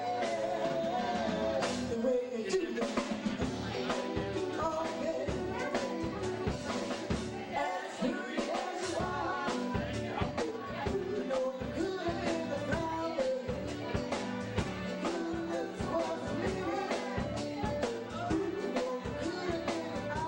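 Live band music: vocalists singing over a drum kit and electric bass guitar, with a steady beat throughout.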